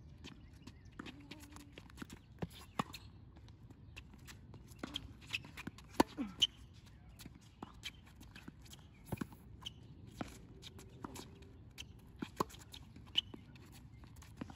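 Tennis rally on a hard court: sharp pops of rackets striking the ball and the ball bouncing, at irregular intervals, with footsteps and shoe scuffs between shots. The loudest hit comes about six seconds in.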